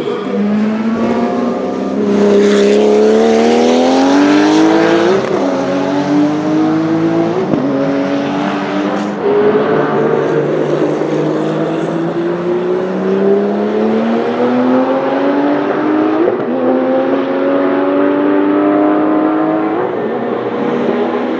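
Porsche 935 K3 race car's turbocharged flat-six accelerating hard through the gears: the engine pitch climbs steadily and drops sharply at each of about five upshifts, with a long pull between the third and fourth.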